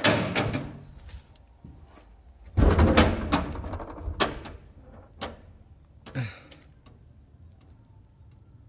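A handful of knocks and thumps: one at the start, the loudest and longest about two and a half seconds in, then three single clicks a second apart, fading to quiet.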